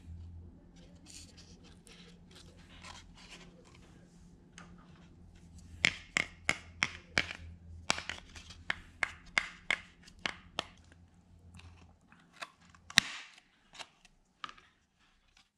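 Sharp crunching clicks on a stiff, dried paper mache skull shell, about two or three a second for several seconds in the middle, then one loud snap about two seconds before the end. Softer scraping and handling rustle come before them.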